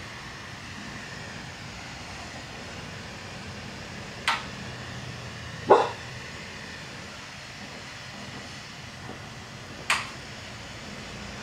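A glassworking bench torch hissing steadily, broken by three sharp clinks of glass rods being handled at the bench, the loudest about halfway through, with a brief ring.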